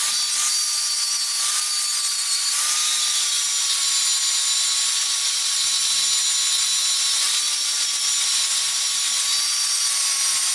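Metabo angle grinder running under load, grinding down weld metal built up on the edge of an anvil's face: a steady high whine over a hiss, its pitch wavering slightly as the disc bites.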